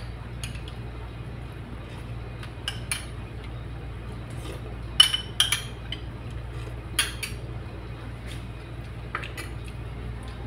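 A spoon clinking and scraping against a small clear bowl while someone eats dahi bhalla from it, in scattered sharp clinks, the loudest about halfway through. A steady low hum runs underneath.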